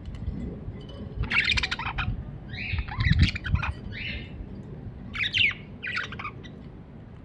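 Budgerigar chirping in several short bursts of quick, scratchy warbling, over a low background rumble.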